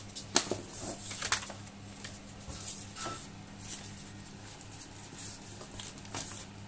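Paper leaflet and a small plastic bag with a cable inside being handled: rustling and crinkling, with sharp crackles loudest in the first second and a half. A steady low hum runs underneath.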